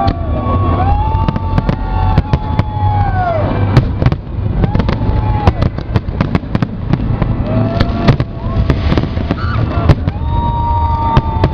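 Fireworks going off in a dense barrage: many sharp bangs and crackles over a constant low rumble of booms, with several long whistling tones that rise and fall.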